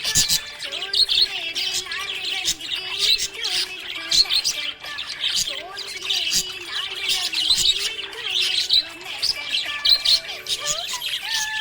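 Budgerigar chirping and warbling: a continuous stream of rapid, high chirps mixed with lower wavering warbles.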